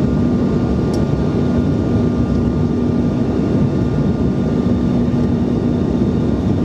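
Steady cabin noise of a Bombardier CRJ900 in flight, heard from inside the cabin: the rumble of its rear-mounted GE CF34 turbofans and the airflow, with a steady low hum and fainter high whining tones over it.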